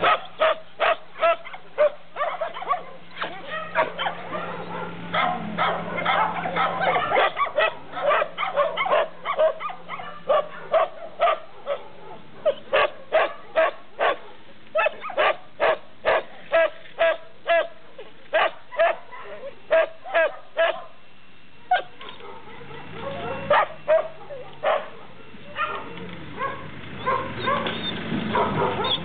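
Shelter dogs in kennels barking repeatedly, sharp barks coming about one or two a second, with a short lull about three-quarters of the way through.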